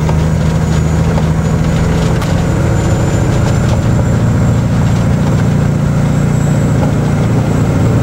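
Caterpillar diesel engine of an unloaded Kenworth logging truck running steadily under way, heard from inside the cab, with road noise and light rattling from the gravel road.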